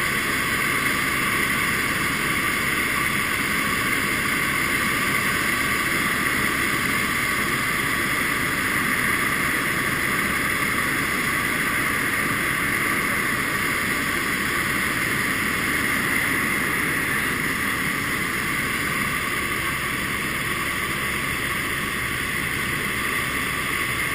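Helicopter in flight heard from inside the cockpit: a steady, unbroken drone of engine and rotor noise.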